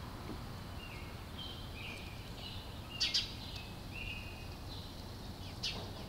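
Small songbirds chirping: a string of short chirps, with two sharper, louder chirps about three seconds in and near the end, over a steady low rumble.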